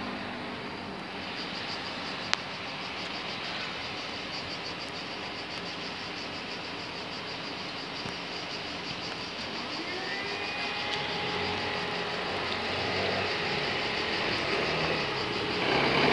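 Railway level-crossing bell ringing in a fast, even beat over road traffic. Near the end, scooter engines grow loud as they accelerate away.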